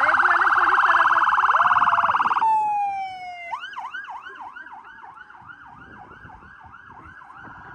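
Police car electronic siren: a loud, very fast warble that breaks off about two and a half seconds in with a falling tone, then a quieter yelp sweeping up and down about three times a second.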